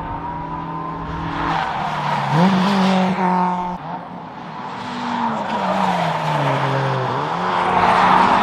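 Car engine under hard driving on a race track, its revs climbing about two seconds in, falling away slowly and then climbing sharply again near the end.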